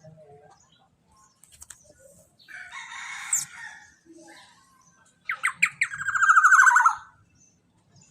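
Young black-naped oriole (kepodang) giving harsh, rasping calls: a shorter one about three seconds in, then a louder one near the end that starts with a quick run of clicks.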